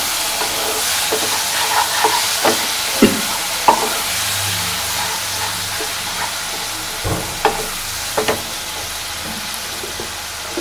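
Chopped tomatoes sizzling in hot mustard oil with spices, stirred with a wooden spatula that scrapes and knocks against the pan now and then. The sizzle eases slightly toward the end.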